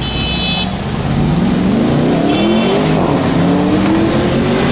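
Porsche Panamera's engine accelerating away, revs rising, dropping briefly at a gear change about halfway through, then climbing again. Two short high-pitched beeps sound at the start and in the middle.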